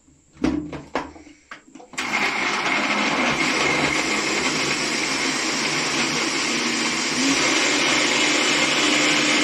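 A few short knocks as the blender jar and lid are handled, then about two seconds in a countertop electric blender starts suddenly and runs steadily, puréeing scalded tree tomatoes in broth. It runs a little louder for the last couple of seconds.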